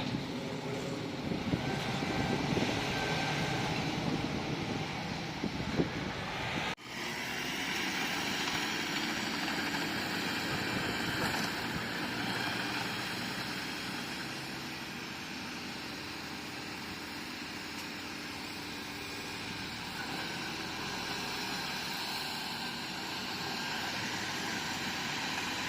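Bulldozer diesel engine running steadily under work, with a short break about seven seconds in, after which the sound carries on slightly brighter.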